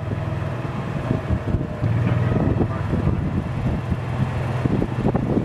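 Golf cart driving along: a steady low hum from its drive with frequent small knocks and rattles from the cart body, and some wind on the microphone.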